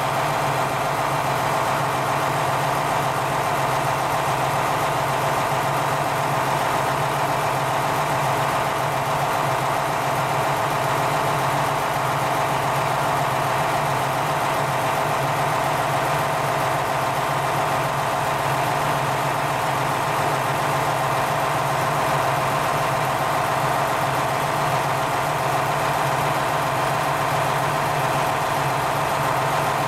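Diesel engine of a KiHa 47 railcar idling steadily at a standstill, an even running note with no change in speed.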